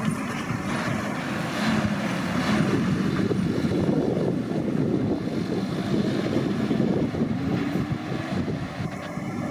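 John Deere 6215R tractor's six-cylinder diesel engine running steadily while the tractor pulls a Heath superchaser bale chaser.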